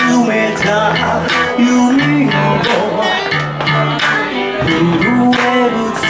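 Live band playing a guitar-driven song with a steady beat of about two hits a second, with a voice singing a held, bending melody over it.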